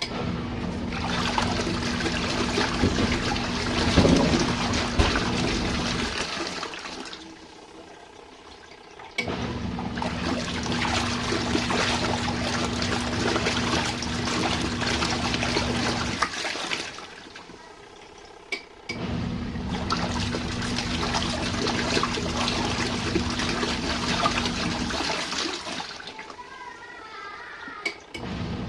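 RV washing machine agitating during its rinse cycle. Its motor hums while the water churns for about six to seven seconds, then stops for two to three seconds, three times over.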